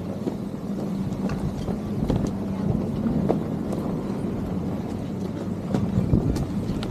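Ski chairlift running, a steady mechanical hum with scattered light clicks and some wind on the microphone.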